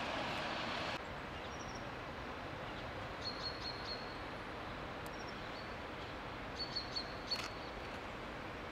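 Steady outdoor background noise, a little quieter after a step down about a second in, with a few short high bird chirps in two clusters, around three seconds in and again near seven seconds.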